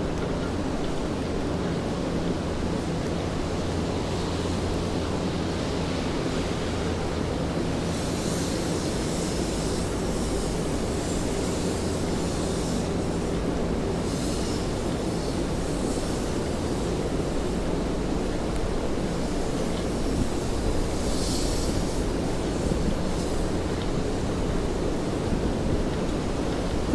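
Steady rain and city traffic rumble on wet streets, with a low hum underneath and a few brief louder hissing swishes now and then.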